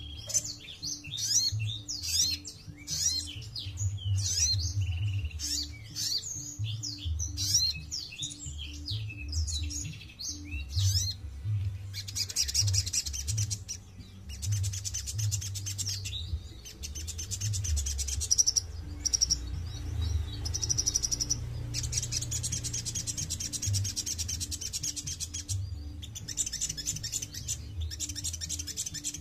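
A sogon, a small long-billed nectar-feeding songbird, singing. It gives quick, varied high chirps and twitters for about the first ten seconds, then long runs of fast high trills broken by short pauses.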